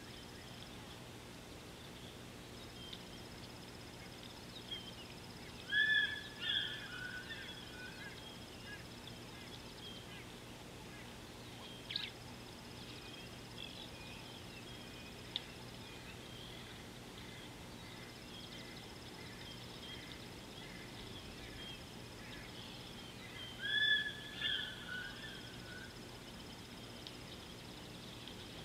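Wild birds chirping and calling in the open, with one bird giving a louder, short call phrase twice: about six seconds in and again near the end. A faint high steady trill comes and goes behind them, and a single sharp click sounds about halfway.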